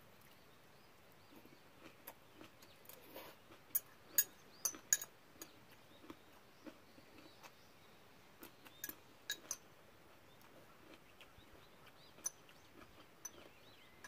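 Thin metal chopsticks clicking and tapping against a clear food container as seasoned greens are picked out, in scattered faint clicks, with quiet chewing between them.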